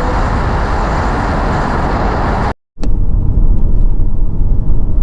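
Steady road and wind noise of a moving car. It breaks off for a moment about two and a half seconds in, then comes back duller and heavier in the low end.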